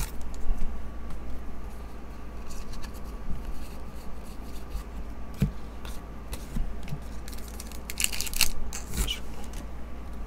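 A foil trading-card pack being opened and its cards handled: the wrapper crinkles, then cards slide and click against one another as they are flipped through, with a burst of rustling near the end.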